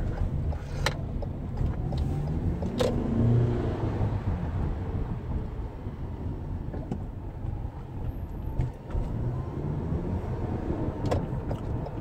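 Car engine and road noise heard from inside the cabin while driving slowly, the engine pitch rising and falling as the car speeds up and eases off. Two sharp clicks in the first few seconds.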